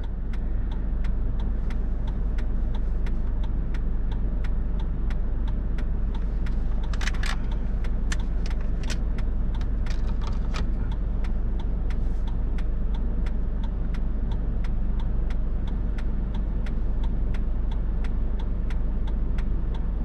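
Parked car's engine idling with a steady low hum, heard from inside the cabin, with an even ticking a few times a second throughout. A louder cluster of sharp clicks comes about seven to ten seconds in.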